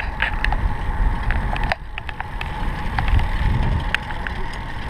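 Wind rumbling on the microphone of a camera riding along on a moving bicycle, with scattered sharp clicks and rattles from the bike on the paved path.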